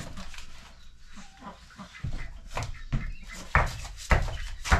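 Frozen packages of meat knocking and thudding as they are lifted out of a chest freezer and dropped into fabric storage bins, several knocks in the second half. An animal calls in the background.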